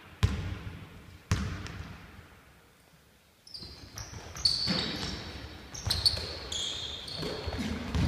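A basketball bounced twice on a hardwood gym floor, about a second apart, each bounce ringing in the hall. After a short lull, sneakers squeak in short, high chirps on the floor, mixed with more thuds of the ball, as players drive to the basket and run the floor.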